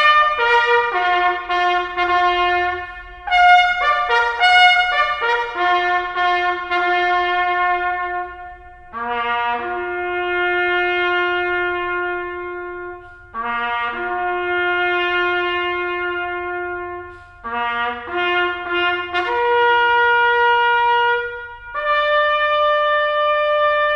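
A solo brass instrument playing a slow bugle-style call: a run of shorter notes, then long held notes with short breaks between them, on only a few notes of the natural horn series.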